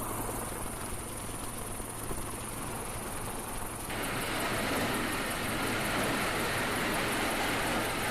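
Aircraft engine noise, a steady rush. About four seconds in it switches abruptly to a brighter, slightly louder rush.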